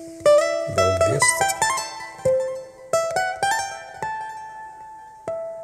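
Plucked-string music playing a melody of single notes, each ringing and fading: a quick run of notes in the first two seconds, then slower, longer-held notes.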